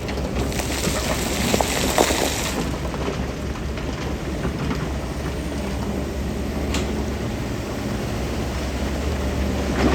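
Heavy diesel construction machinery running with a steady low rumble. About half a second in comes a two-second rush of hissing, scraping noise with a few metallic clanks, and there is a sharp click later on.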